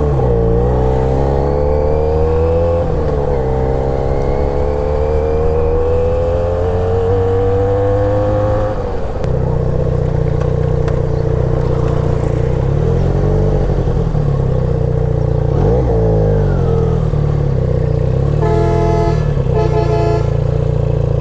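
Motorcycle engine pulling away and accelerating, its pitch rising steadily for about nine seconds, then running at a steadier speed with a couple of brief dips in revs. Near the end a horn sounds for about two seconds.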